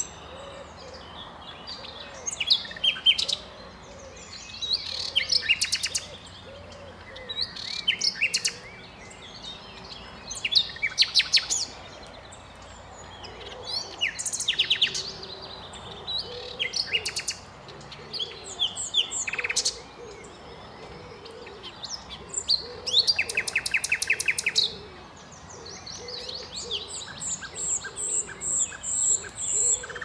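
Common nightingale singing: a string of varied phrases a second or two long with short pauses between, many built of rapid repeated notes. Near the end a run of high whistled notes grows steadily louder.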